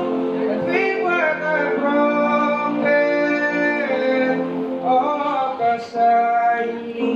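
A young male singer singing a slow ballad into a handheld microphone, holding long notes with short breaths between phrases.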